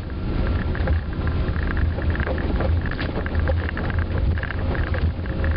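Airbus A330 jet airliner on its takeoff run: a loud, steady low rumble with many small rattles and clicks through it.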